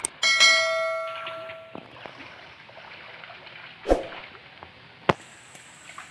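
YouTube subscribe-animation sound effect: a mouse click, then a bright bell-like chime that rings for about a second and a half and dies away. Two more short sharp clicks or knocks follow later.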